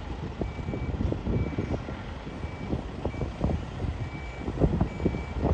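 Level crossing warning alarm beeping steadily, about one short high beep a second, over irregular low rumbling and knocks from a passing freight train.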